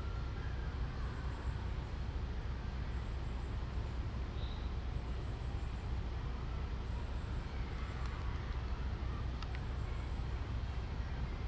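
Steady low outdoor background rumble with a few faint high chirps, and one sharp click about nine and a half seconds in.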